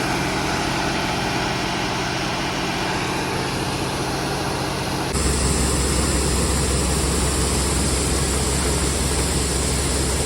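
Farm machinery engine running steadily while grain is augered into a bin. About five seconds in, the sound switches abruptly to a louder, deeper hum.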